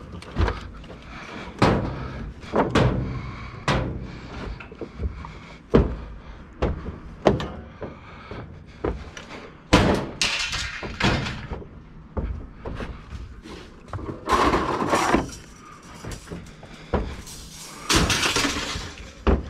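Scrap metal being unloaded and thrown down piece by piece: irregular clanks, bangs and thuds about once a second, with a few longer clattering crashes.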